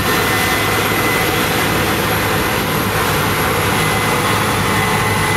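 Case IH 9120 Axial-Flow combine harvester running under load while harvesting: a steady engine and machinery drone with a constant high whine.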